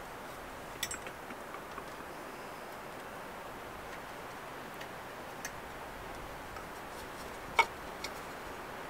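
Small metal-and-wood clicks and taps as a thin saw blade is handled and fitted into its handle, with one sharp, louder metallic click about seven and a half seconds in, over a steady soft hiss.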